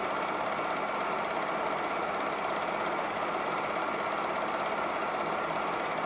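Super 8 film projector running: a steady, fast mechanical clatter from the film transport, with no soundtrack because the digest is a silent print.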